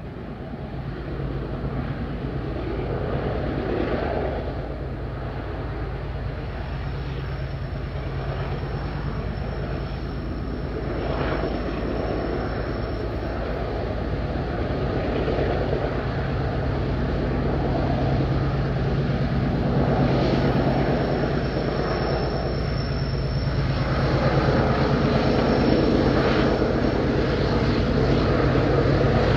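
A group of BNSF diesel locomotives pulling a container train, their engines running with a steady low drone that grows louder as they approach. A faint high whine comes and goes over it.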